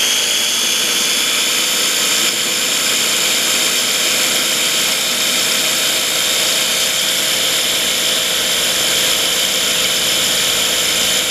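Small KitchenAid food processor's electric motor running at a steady high whine as its blade churns heavy cream for butter.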